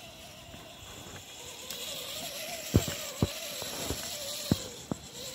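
HSP Climber 4WD RC crawler's electric motor and gears whining as it drives through wet snow, the whine wavering in pitch and growing louder with a hiss from about two seconds in. Several sharp knocks fall in its second half.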